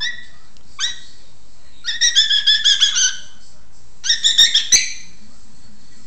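African grey parrot making very high-pitched squeaky calls: two short chirps, then two quick runs of warbling notes about a second long each, the second with a few sharp clicks.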